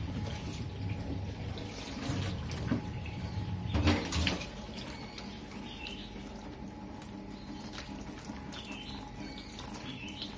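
Water from a hose running over a wet cat and splashing onto a metal sink drainboard, with one louder burst of noise about four seconds in.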